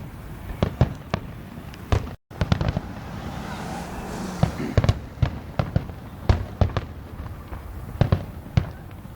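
Fireworks display: shells bursting in a run of sharp bangs at irregular intervals, some in quick pairs. The sound cuts out completely for a moment about two seconds in.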